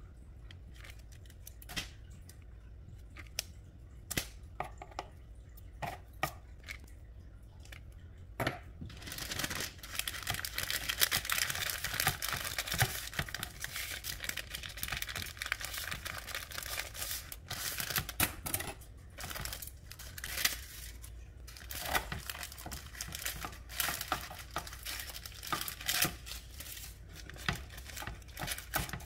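Baking paper rustling and crinkling in dense bursts as it is rolled up around strips of bacon. For the first eight seconds or so there are only scattered light clicks of metal tongs laying the bacon down.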